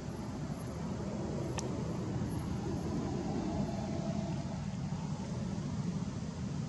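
Steady low background rumble, like distant road traffic, with a single sharp click about a second and a half in.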